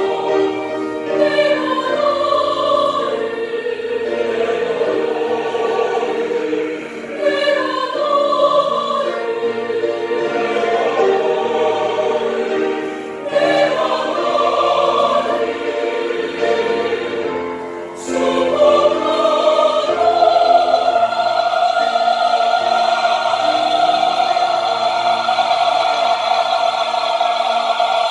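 Choir singing a piece in parts, ending on a long held chord over the last several seconds.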